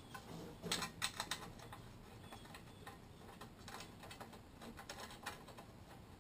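Faint metallic clicks and ticks as the mounting bolts of a lawn mower's recoil starter housing are fitted and started by hand, not yet tightened. There is a quick cluster of sharper clicks about a second in, then lighter scattered ticks.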